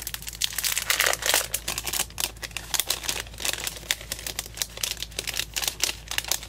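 Clear cellophane packaging bag crinkling and crackling continuously as hands handle it and pull it open.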